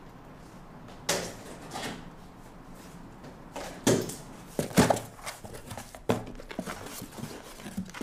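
Cardboard parcel box being opened by hand: a series of sharp rips and crackles from the packing tape and cardboard flaps, loudest around four to five seconds in.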